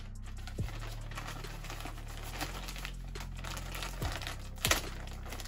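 Plastic mailer bag crinkling and rustling as it is handled and opened, with small clicks and a louder crinkle near the end.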